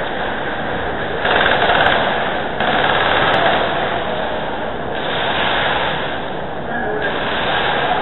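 Airsoft guns firing in rapid full-auto bursts, a fast rattle, with the longest and loudest bursts starting about a second and a half in.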